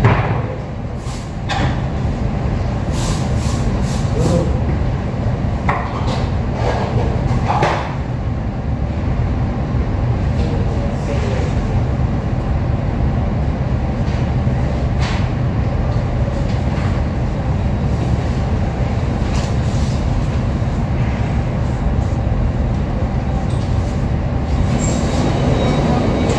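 Steady low mechanical rumble throughout, with scattered light clicks and knocks.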